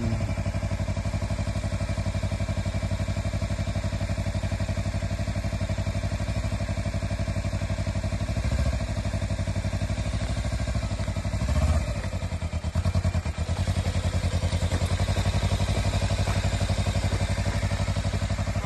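Sport motorcycle engine idling steadily, in first gear. About twelve seconds in the engine briefly picks up, then sags and runs unevenly for a second or so before settling back to idle.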